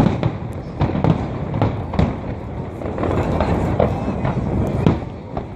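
Aerial fireworks bursting: a run of sharp bangs, some loud and some fainter, over a continuous rumble of further explosions.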